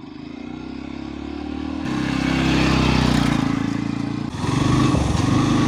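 Motorcycle engine running on the move, growing louder over the first few seconds, with an abrupt change in its sound a little past four seconds in.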